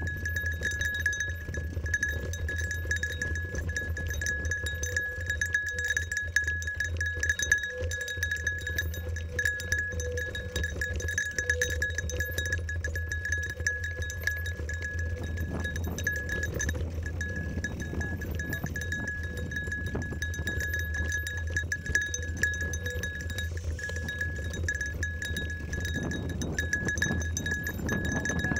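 Mountain bike riding a dirt trail: a steady bell-like jingling rings continuously over the rattle of the bike and tyres on the dirt, with a low wind rumble on the handlebar microphone.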